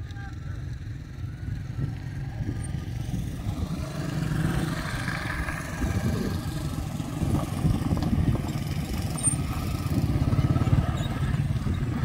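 Engines of a car and a motorcycle on a dirt track: a low running rumble that grows louder toward the end as they come close.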